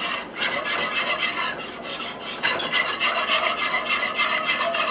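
Wire whisk scraping steadily round a pot, beating milk into a butter-and-flour roux to work out the lumps.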